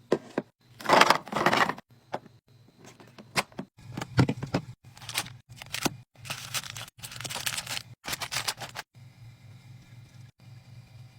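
Packaging and containers being handled while a mini fridge is restocked: a string of crinkling, scraping rustles and sharp clicks and knocks, dying away about nine seconds in to a faint steady hum.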